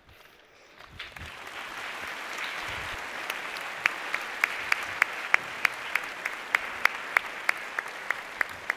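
Audience applause, building from about a second in. From about four seconds in, single sharp claps at a steady beat of about four a second stand out above the general clapping.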